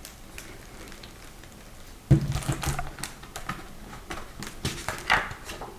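A picture book being shaken by hand: irregular rustling, flapping pages and small knocks of the cover, starting about two seconds in.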